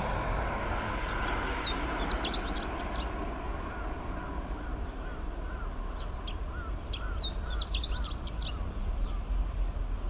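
Chestnut-eared bunting singing its song twice: a short, rapid jumble of high, sharp notes about two seconds in and again about seven seconds in.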